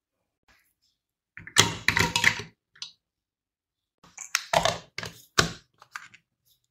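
Kitchen handling sounds during food preparation: short bursts of clattering and knocking in three or four groups, with silence between them.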